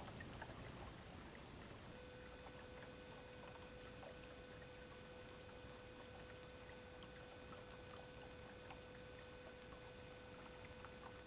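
Faint, steady wash of running water from a garden fountain, with a steady hum that joins about two seconds in and cuts off near the end.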